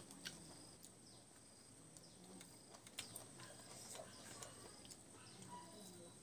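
Faint mouth sounds of a person eating rice and curry by hand: soft chewing with a scattering of sharp little clicks and smacks.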